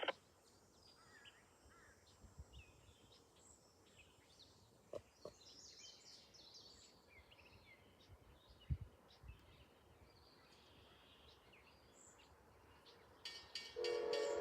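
Faint birds chirping over quiet outdoor background, with a few brief soft knocks. About a second before the end, an Amtrak locomotive horn starts sounding a loud, steady chord.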